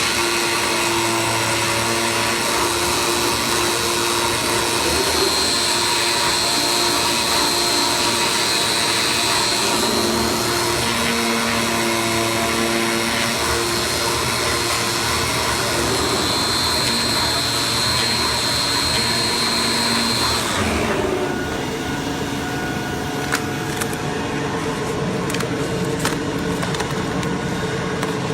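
Flatbed CNC digital cutter running: a steady, vacuum-like hiss with whining motor tones that come and go. About 20 seconds in the high hiss drops away, leaving a lower, slightly quieter running sound with a few sharp clicks.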